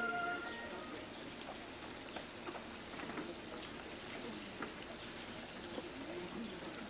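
Sustained music stops about half a second in, leaving quiet outdoor ambience with faint scattered chirps and small clicks.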